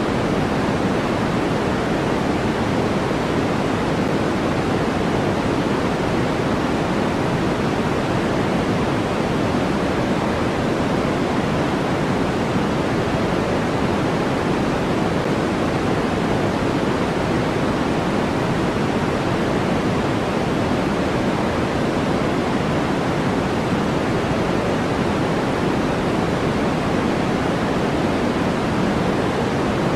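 Generated white noise: a steady, even hiss that never changes, fuller in the low and middle range than in the highs.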